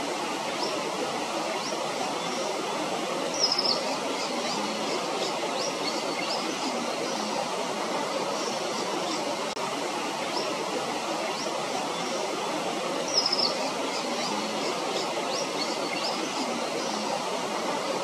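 Small birds chirping in short high notes over a steady rushing background noise. A louder, sharper chirp stands out twice, about ten seconds apart.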